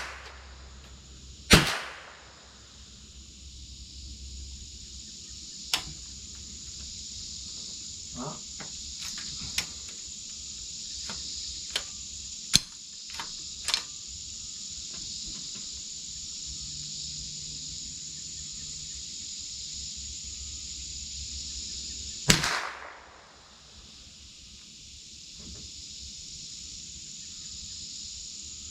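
Two sharp .22 rimfire rifle shots from a Marlin Model 60 semi-automatic, one about a second and a half in and one about twenty-two seconds in, with a few fainter clicks between them. A steady high insect buzz runs underneath.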